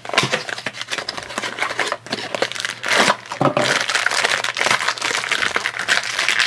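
Cardboard blind box opened by hand, then the thin plastic blind bag inside crinkled and pulled open: a dense, continuous run of crinkles and crackles.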